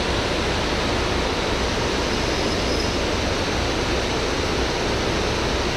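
Water pouring over a dam's spillway gates: a steady, unbroken rushing noise.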